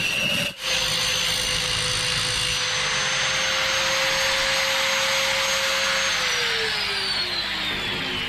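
Electric drill spinning an 8 mm stainless steel rod against a running angle grinder to grind it thinner, with a brief break about half a second in. The motor then runs at a steady pitch, and about six seconds in it starts to wind down, falling in pitch as the tool is switched off.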